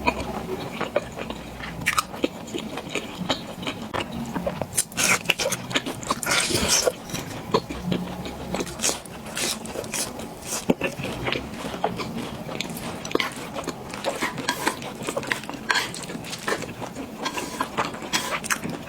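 Close-up eating sounds: a person biting and chewing food, with many small irregular wet mouth clicks and smacks.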